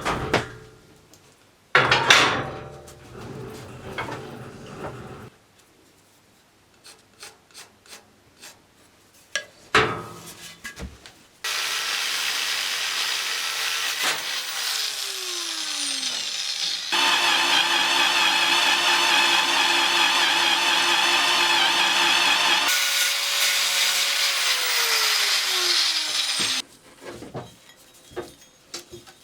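Workshop work on metal: a few sharp knocks, one ringing on for a few seconds, then a power tool running steadily for about fifteen seconds. It is louder for a stretch in the middle, and its pitch sweeps down as the speed drops.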